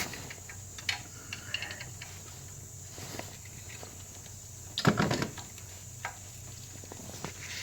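Light, scattered clicks and rattles of hands working at the plastic coil-pack connectors in a Toyota Celica GT's engine bay, with one louder clunk about five seconds in.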